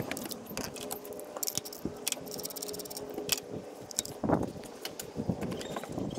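Small plastic clicks and rattles as a flat-tip screwdriver pries the locking tabs of the ignition-coil electrical connectors and the plugs are pulled off, with a duller knock about four seconds in.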